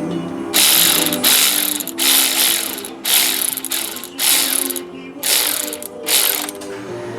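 Hand ratchet wrench cycled in about seven quick strokes, each a burst of rapid pawl clicks, while a fastener is turned during the coil pack job.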